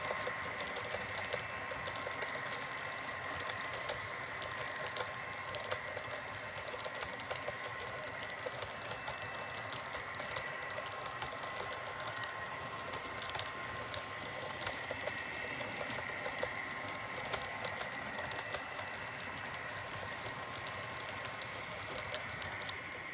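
Model diesel-led train running along the layout track: a rapid, irregular clicking over a steady whine.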